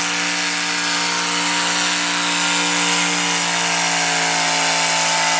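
V8 engine of a hot rod pulling tractor running hard at steady high revs while it drags the pulling sled down the track. The pitch holds nearly steady throughout.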